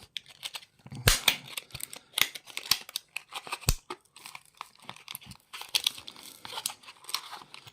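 Padlock packaging being cut and torn open with a work knife, with irregular crinkling and crackling and a couple of sharper snaps.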